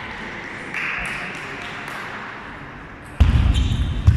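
Table tennis ball ticking sharply off bats and table during a serve and rally. About three seconds in, a loud low rumble of thuds sets in under the ticks.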